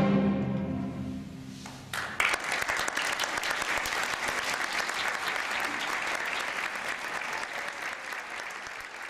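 The closing chord of a piano and orchestra piece dies away, then an audience breaks into applause about two seconds in. The clapping goes on and slowly fades.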